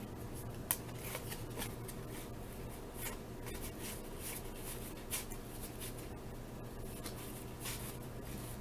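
Faint, irregular rustling and flicking of cardboard baseball cards from an opened wax pack being handled and flipped through one by one, with a few sharper clicks.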